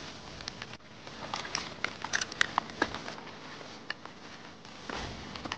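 Light rain pattering: irregular small ticks of drops over a steady hiss.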